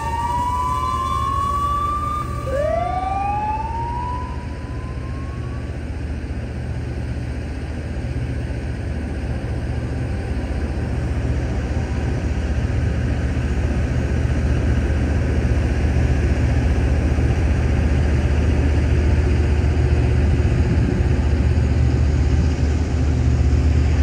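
Loram rail grinder train rolling past with a steady low rumble that slowly builds toward the end. In the first few seconds, two rising whines slide up in pitch one after the other.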